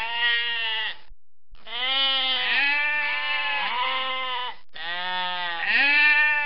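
Sheep bleating repeatedly: a series of drawn-out bleats, with a short break about a second in.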